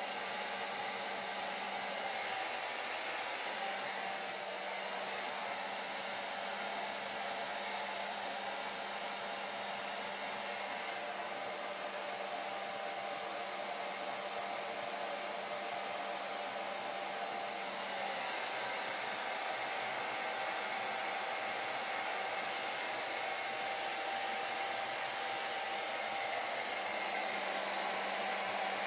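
Electric hair dryer running steadily: an even rushing whoosh of blown air with a faint low motor hum beneath it.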